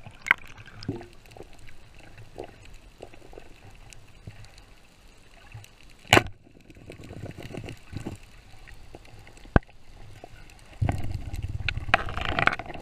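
Muffled underwater sound heard through a camera housing, with scattered clicks and one loud sharp crack about six seconds in as the band-powered wooden speargun fires. From about eleven seconds in, louder churning water and rattling.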